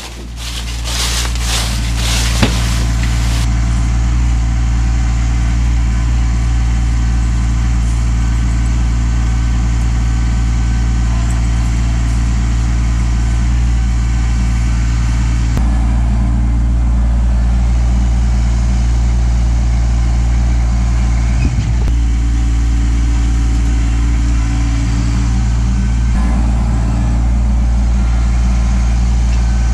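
Kubota LX2610 compact tractor's diesel engine running steadily close by, a constant low drone, with crackly noise over it during the first three seconds.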